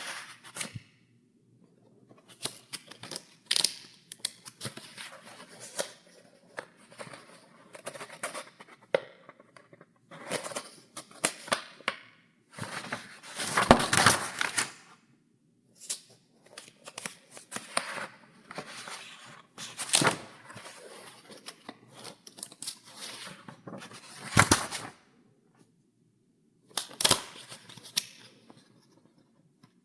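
Paper pages in a file folder being turned one after another: crisp rustles and flaps, with short silent pauses between turns. The loudest and longest rustle comes about halfway through.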